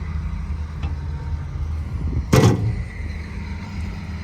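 Caterpillar wheel loader's diesel engine running steadily at idle, with a single loud bang about two seconds in, such as a door or panel being shut.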